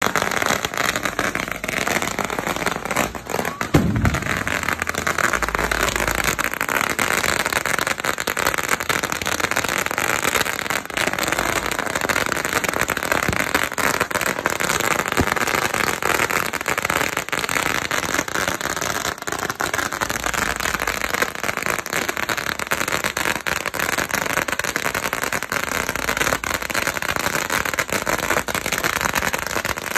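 Long strings of firecrackers going off on the pavement: a dense, unbroken crackle of rapid small bangs, with one louder bang about four seconds in.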